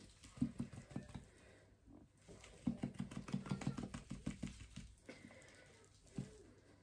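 Plastic applicator bottle of hair dye squeezed hard, spluttering and squelching as dye and air squirt from its nozzle, in two runs of quick pulses: one about a second in and a longer one from about the middle.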